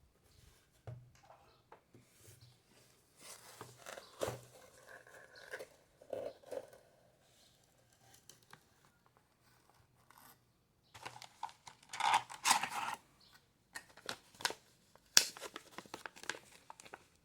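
Packaging of a circuit-board shipment being opened by hand: tearing and crinkling in irregular spells, loudest about twelve seconds in, with a sharp click about fifteen seconds in.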